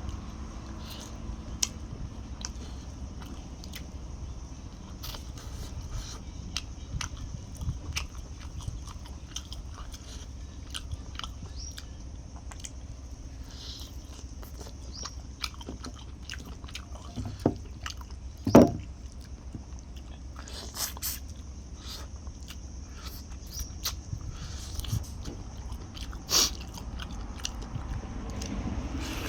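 A person chewing and biting into chicken up close, with small crunches and wet mouth clicks scattered throughout. One louder low thump comes about two-thirds of the way through.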